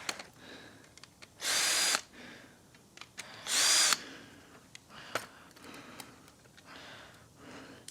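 Power drill/driver running in two short bursts about two seconds apart, each with a high motor whine, used on a Kirby vacuum during disassembly. Faint clicks and handling noise come between the bursts.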